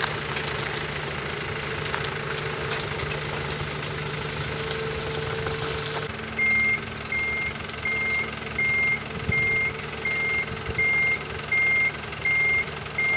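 Truck engine idling with wind noise, then, about six seconds in, the truck's reversing alarm starts beeping steadily, a high beep less than a second apart, over the engine.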